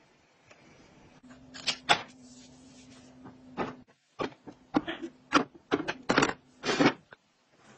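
Glass and plastic cosmetic jars and bottles set down on a plastic vanity top and organizer shelf: a string of clicks and knocks, thickest in the second half, with one slightly longer scrape near the end. A low steady hum runs under the first few seconds.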